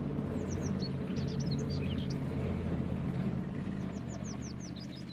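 Tank driving: a steady low engine rumble, with short high chirps over it at times, fading down toward the end.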